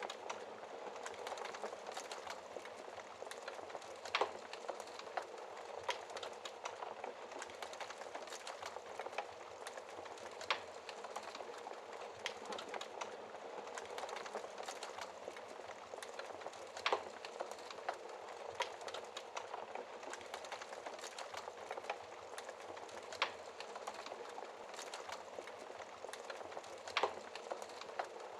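Wood fire crackling steadily in a fireplace, a fine stream of small crackles with an occasional louder pop.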